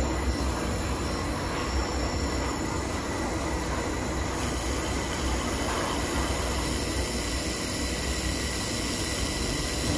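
Steady rushing hiss over a low hum from an IPG LightWELD XR handheld laser welder with wire feeder, welding a stainless exhaust pipe joint.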